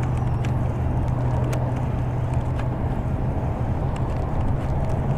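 Baitcasting reel cranked steadily to retrieve a lure: a constant low whir with a few faint ticks, over wind and lapping water.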